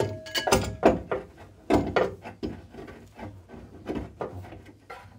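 Knocks and scraping as a new rear damper is manoeuvred by hand up into its mount, metal tapping against the suspension and wheel-arch bodywork. The knocks are quick and irregular, heaviest in the first two seconds, then a lighter clatter.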